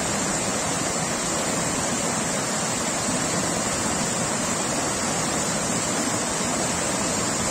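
River water rushing steadily over a series of low rock-ledge cascades.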